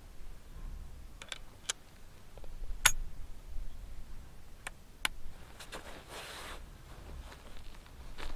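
Sharp clicks from the falling-block action of a Martini-Henry rifle being handled as a cartridge is loaded and the rifle readied to shoot: several clicks, the loudest about three seconds in, then a brief rustle. No shot is fired.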